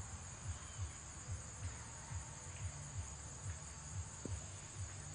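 A steady, shrill chorus of insects in the surrounding trees, over a low thump repeating about two and a half times a second.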